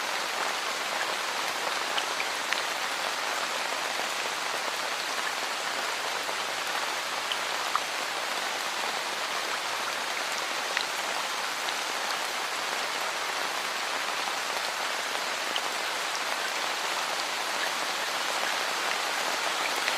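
Steady rain falling, an even hiss with scattered sharper ticks of single drops.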